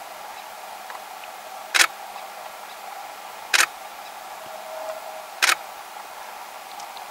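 Three single shutter releases of a camera, evenly spaced about two seconds apart, over a steady low hum.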